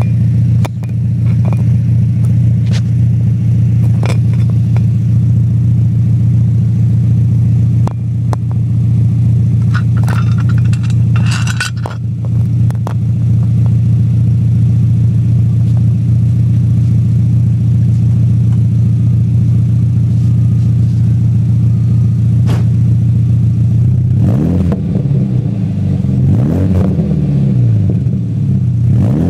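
Mk3 Volkswagen Jetta's 2.0-litre four-cylinder idling steadily through a catback exhaust with a cheap eBay muffler and dual tips. About 24 seconds in it is revved several times, the pitch rising and falling with each blip. A few light knocks sound over the idle in the first dozen seconds.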